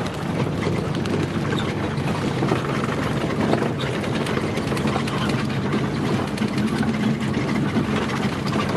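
Steady drone of a bus engine and road noise heard from inside the moving bus.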